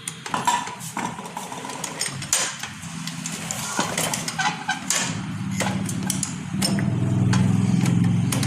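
Metal tools and clutch parts clinking and knocking in a run of short sharp taps. From about halfway an engine runs underneath, growing louder near the end.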